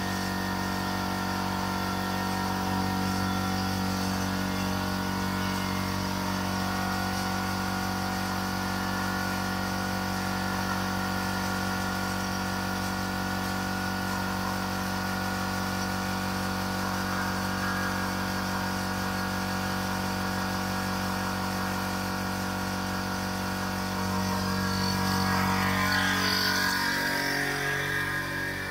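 Air compressor motor running steadily while it builds up pressure in its tank; it grows a little louder near the end, then dies away.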